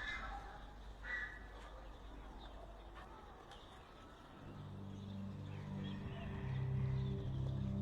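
Two short bird calls near the start, then music from a loudspeaker comes in about four and a half seconds in and grows louder: the recall music played to call racing pigeons home to the loft.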